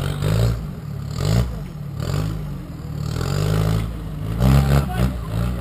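Off-road 4x4's engine revving hard in repeated surges, its pitch climbing and dropping as it claws up a steep rocky slope, with some clatter and scraping from the wheels on rock and dirt.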